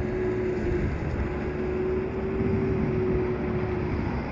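A steady engine drone holding one even pitch over a low rumble, with wind buffeting the microphone.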